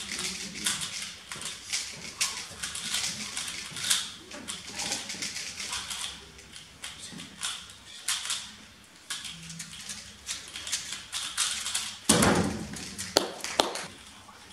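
Rapid, irregular clicking and clacking of a 3x3 speedcube being turned at speed. A loud thump comes about twelve seconds in.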